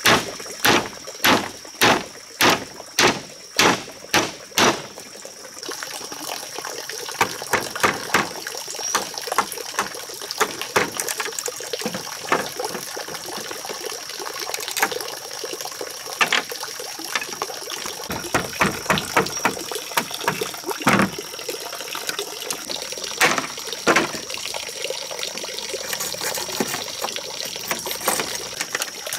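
A hammer striking split bamboo about nine times, roughly twice a second, for the first five seconds. Then scattered lighter knocks and taps as bamboo is cut and trimmed with a machete.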